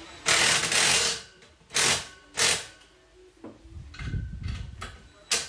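Cordless impact driver driving a screw into a metal basketball pole in short runs: one run of about a second near the start, two brief ones soon after, and another brief one near the end.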